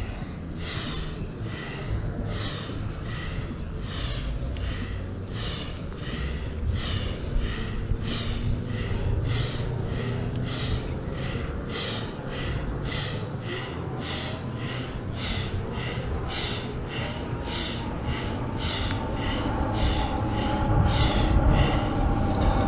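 Rhythmic forceful breathing in and out through the nose, about one and a half breaths a second, paced to a yoga spinal-flex exercise in which the back arches on the inhale and rounds on the exhale.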